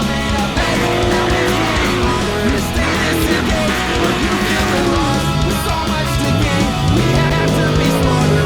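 Rock music with electric guitar, with bending guitar notes over a steady drum beat.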